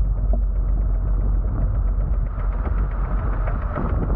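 Wind buffeting the camera's microphone on a catamaran under sail: a steady low rumble, with the rush of water along the hulls and faint ticks mixed in.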